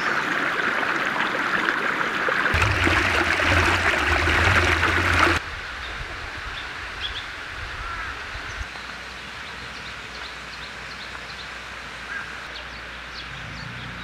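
Mountain stream water rushing steadily, cutting off suddenly about five seconds in. After that, quieter forest ambience with scattered short bird chirps.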